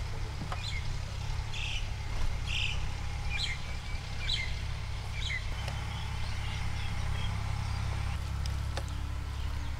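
A bird chirping: a series of short, high calls about once a second through the first half, over a steady low rumble.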